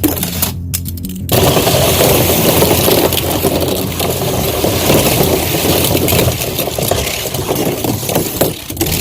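A rapid clatter of many small hard clicks: die-cast toy cars rattling against one another and the slide as a batch of them goes down together, starting about a second in and stopping just before the end, over background music.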